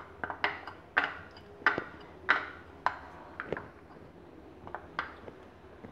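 A metal spoon clicking and tapping against a pan as ghee is spooned in: about eight light, irregular taps, most of them in the first three seconds, then fainter.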